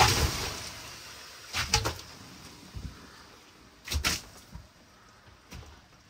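Water thrown from a plastic basin splashing onto wooden benches and boards: a loud splash with spray hissing away over a second or so, then two more splashes about two seconds apart and a few lighter ones near the end.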